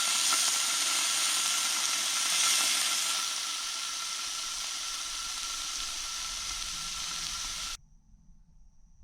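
Food sizzling in a frying pan, a steady hiss that eases about three seconds in and stops abruptly near the end.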